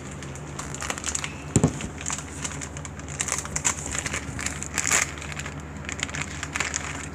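Foil-lined instant ramen wrapper crinkling and crackling in irregular bursts as it is handled and the noodle block is worked out of it, with one sharp thump about one and a half seconds in.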